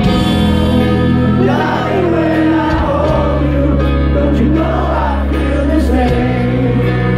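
Live rock band playing a slow piano ballad through a concert PA, with a male lead vocal singing over sustained keyboard chords and a steady bass. The voice comes in about one and a half seconds in.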